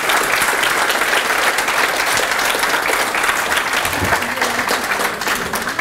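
Audience applauding: a hall full of people clapping steadily, with a few voices heard through it near the end.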